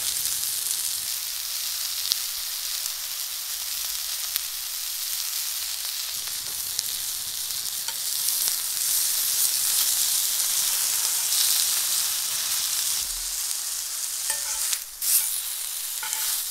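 Chicken breasts sizzling in a cast-iron pan, a steady frying hiss. It gets louder about halfway through as the pieces are turned with tongs, with a few sharp clicks and one loud click near the end.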